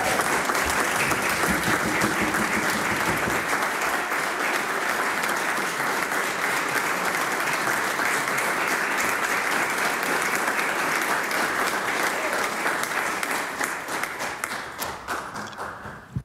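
Applause from a chamber of legislators, long and steady, thinning and fading over the last few seconds before it stops abruptly.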